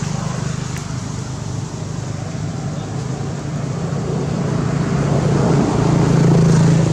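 A motor vehicle's engine running with a steady low hum and road noise, growing louder toward the end.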